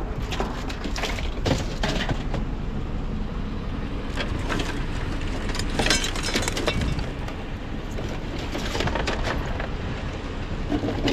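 Scrap items being handled and sorted, with scattered short knocks and clatters of objects set down and tossed into bins over a steady low rumble.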